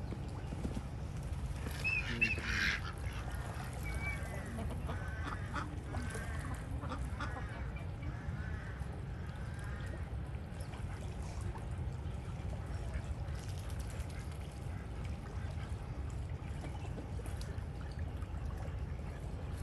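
Waterfowl calling: a loud harsh honk about two seconds in, then a run of short honking calls over the next several seconds, which thin out and stop around halfway through.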